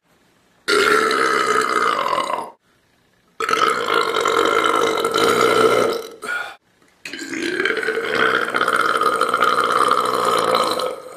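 A person belching: three long, loud burps of about two to four seconds each, with a short one after the second.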